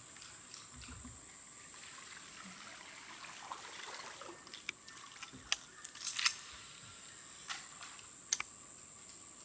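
A few sharp clicks and knocks from handling, scattered through the second half, over a faint steady high-pitched whine.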